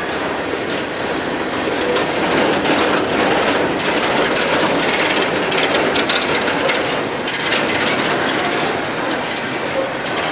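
Coal train cars rolling past: steel wheels on the rails make a steady rolling din with irregular clacks and knocks from the trucks and rail joints.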